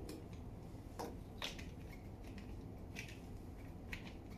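Faint clicks and crinkles of a plastic mineral-water bottle being handled as its screw cap is twisted on, a handful of separate short ticks.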